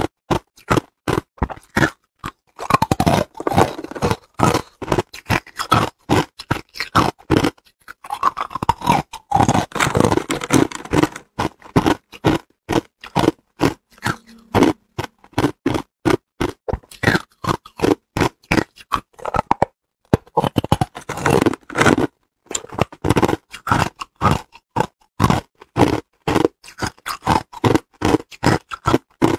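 Hard clear ice being bitten and chewed: a string of crisp crunches, about two to three a second, with denser stretches of grinding crunching now and then.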